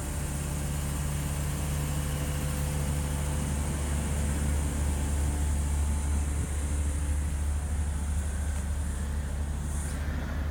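Crickets trilling steadily in a high chorus over a loud, steady, low mechanical hum, like a motor or engine running.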